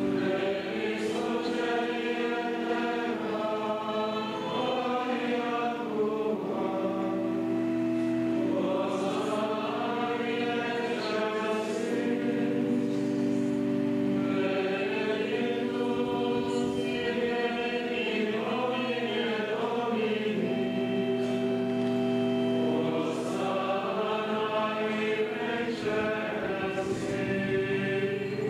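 Choir singing a slow sacred chant, several voices holding long notes that move slowly in pitch.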